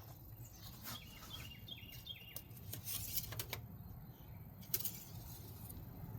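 A bird chirps a quick run of short falling notes, followed by a few sharp light clicks, over a steady low background rumble.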